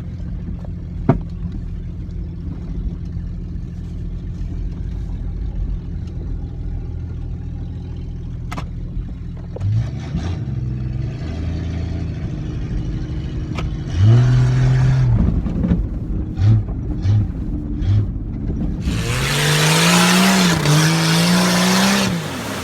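A motor vehicle's engine running with a steady low rumble, then revved in short bursts from about ten seconds in. Near the end it is held at a higher, rising rev under a loud rushing hiss.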